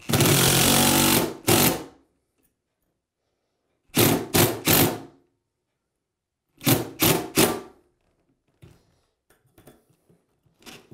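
Cordless DeWalt impact driver driving a number 10 3-inch screw with a washer through a grab bar's steel flange into a tiled wall. One long run of about a second and a half, then two clusters of three quick trigger bursts as the screw is snugged down.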